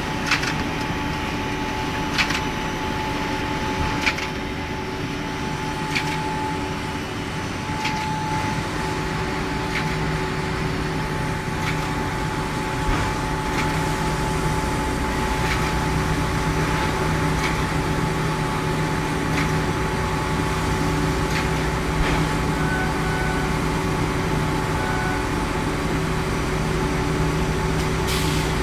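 Automatic band-saw toilet paper roll cutting machine running steadily, a mechanical hum with several constant tones. A sharp click comes about every two seconds, fainter in the second half.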